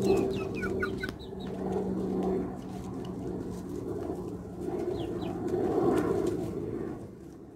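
Young chickens clucking, with short high falling peeps in the first second and again around five seconds in. A steady low hum runs under the first few seconds.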